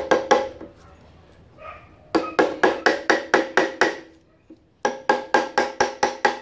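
Hammer tapping rapidly at the flywheel nut of a 1959 Victa two-stroke mower engine while the flywheel is held, each blow with a short metallic ring. The taps come in two quick runs of about eight, about four or five a second, with a pause between them.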